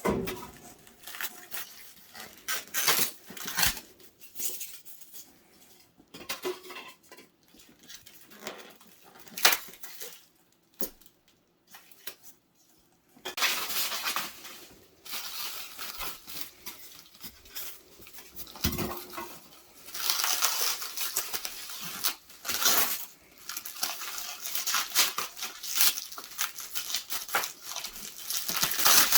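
Packaging being unpacked by hand: a taped box and its styrofoam and packing material being pulled apart, tearing and crinkling, with irregular knocks and clicks and a short lull about a third of the way through.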